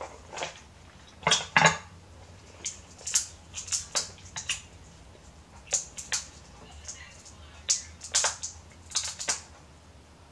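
King crab leg shells being snipped with kitchen scissors and cracked and pulled apart by hand: a string of irregular sharp cracks and snaps, the loudest pair about a second and a half in.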